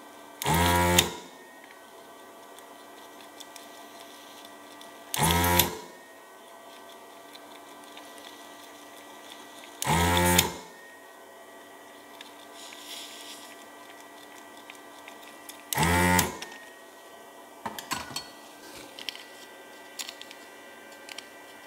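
Desoldering gun's vacuum pump triggered four times, each a half-second burst of small-motor hum as it sucks molten solder off the circuit board's pins. Near the end come scattered small clicks and taps of a screwdriver prying at the board in its plastic housing.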